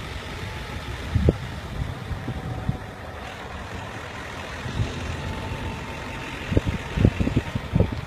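Car driving along a rural road, heard from inside the cabin: steady road and engine noise with wind on the microphone, and several low thumps, a few about a second in and more near the end.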